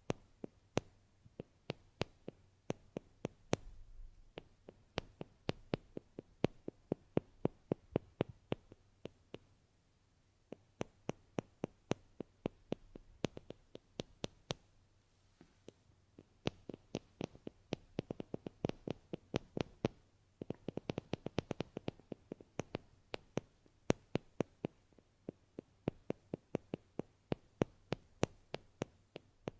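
Rapid, crisp ASMR tapping, roughly three to four sharp taps a second, with a short pause about ten seconds in.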